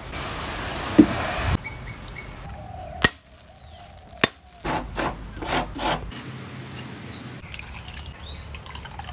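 A run of cooking sounds: a hiss for the first second and a half, then a few sharp knocks as a coconut is cracked open, its water splashing out in several gushes, and wet rubbing and dripping as rice is washed by hand in water near the end.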